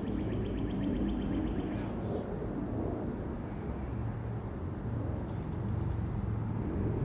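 Distant, steady low rumble of a Boeing 747-8F's four GEnx engines passing high overhead at cruise altitude. A small bird trills rapidly for the first couple of seconds.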